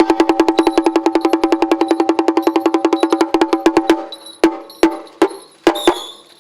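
Procession percussion: a ringing, pitched percussion instrument struck in a fast, even roll of about eight strikes a second, breaking off about four seconds in into a few separate strikes.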